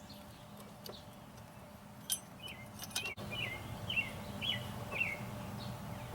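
A small bird chirping a run of short, quick notes, about two a second, starting about two seconds in, with a few light clicks before it.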